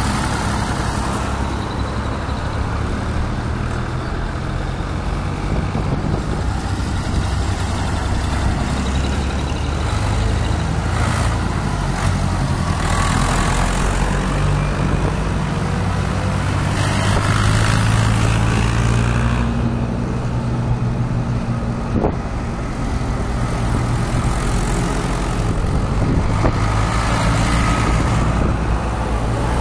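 Tractor engines running as a line of vintage tractors drives past one after another, a steady low engine note that swells and fades as each one passes, loudest a little past the middle.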